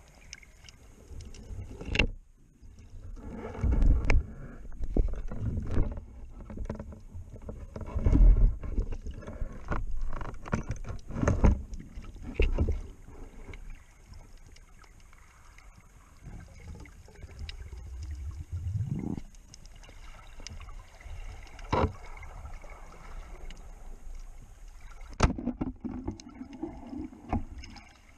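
Underwater ambience heard through a camera's waterproof housing: irregular low surges of water moving past, with scattered sharp clicks.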